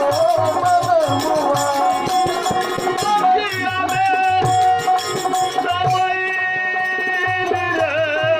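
Devotional folk song accompaniment in teen taal: sustained held melody notes over a regular hand-drum beat with rattling percussion, and a bending vocal-like line at moments.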